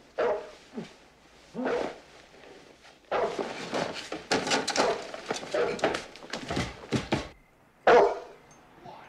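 A Dogue de Bordeaux barking repeatedly in deep barks: a few single barks, then a fast run of barks from about three seconds in, and one loud bark near the end.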